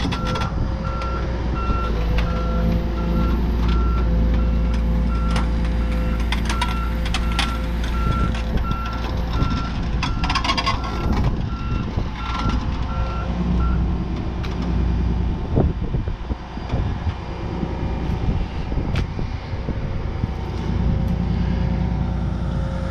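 Backup alarm on heavy equipment beeping steadily over the machine's running diesel engine, with a few knocks. The beeping stops about 14 seconds in, and the engine keeps running.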